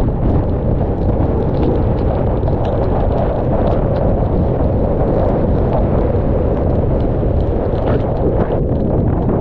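Hurricane wind in the remnant eyewall buffeting the camera's microphone: a loud, steady rumble of wind noise, with scattered ticks of rain striking.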